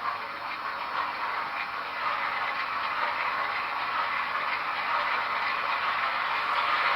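N scale model train running on the track: the rolling clatter of its wheels mixed with the diesel sound of Broadway Limited F7 locomotives' Paragon 4 sound decoders, growing steadily louder.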